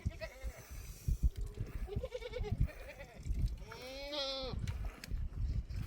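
Livestock bleating: three wavering bleats, the last and longest about four seconds in, with low thuds in between.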